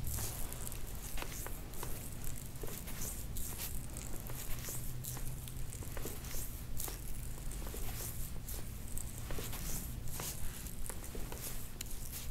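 Fingers kneading and sliding over oiled skin on a neck during a deep tissue massage: soft, irregular rubbing and squishing noises over a low steady hum.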